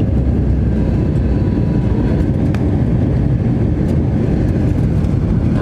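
Steady low rumble inside an Airbus A321 airliner cabin on approach to landing: engine and airflow noise.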